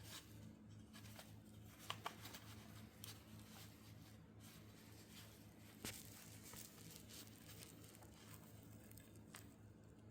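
Near silence: faint room hum with a few soft clicks and rustles, two close together about two seconds in and one about six seconds in.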